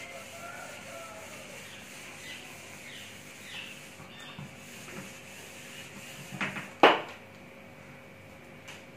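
Whiteboard duster being rubbed over a whiteboard to wipe off marker writing, in faint strokes. About seven seconds in there is a single sharp knock, the loudest sound.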